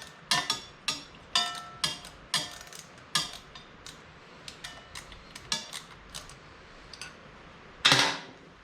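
Small metal parts and tools clinking and clattering as they are handled, a string of irregular sharp clinks, some ringing briefly, with one louder clank near the end.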